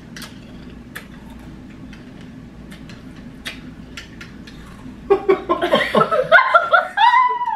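A few faint clicks in a quiet room, then people laughing from about five seconds in, with a high squeal that rises and falls near the end.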